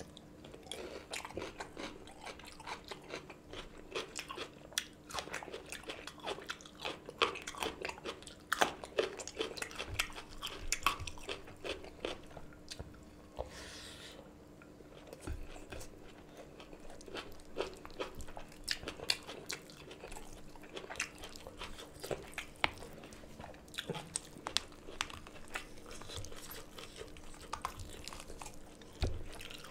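Close-miked chewing of hand-fed mouthfuls of rice and curried chicken, with many sharp wet smacks and mouth clicks, and a faint steady hum underneath.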